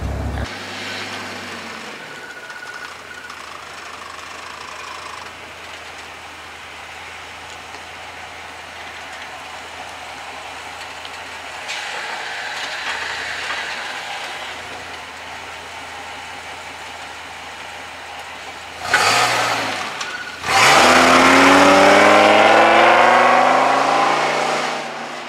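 Ford Super Duty's V-10 running through a Flowmaster Hushpower muffler and new Y-pipe: a low, steady idle, then a quick blip about nineteen seconds in. It then revs up loudly, the pitch climbing for about four seconds before it dies away near the end.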